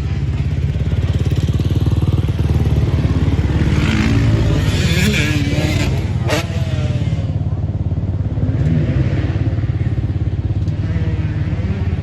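Motorcycle engine running steadily, with a brief rise in the middle and a sharp click about six seconds in.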